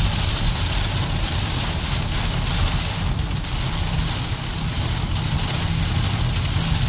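Heavy rain hitting a moving car's windshield and roof, heard from inside the cabin, over a steady low rumble of road and tyre noise on the wet road.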